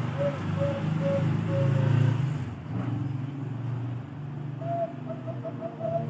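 Caged Bangkok-type perkutut (zebra dove) cooing: a run of soft, quick notes, about three a second, that trails off about two seconds in, then a new phrase begins near the end with a drawn-out note followed by quicker ones. A steady low rumble runs underneath and is the loudest sound.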